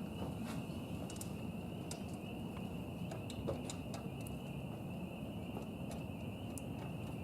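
A steady, high-pitched animal chorus, unbroken throughout, over a low background rumble, with scattered faint clicks.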